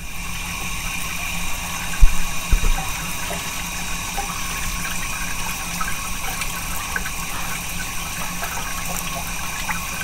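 Machine tool running with coolant flowing and splashing: a steady hiss with a constant hum and whine, and a couple of loud knocks about two seconds in.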